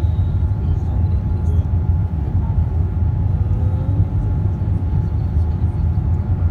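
Steady low drone of jet engines and rushing air inside an airliner cabin during the climb after takeoff, with a faint steady whine above it.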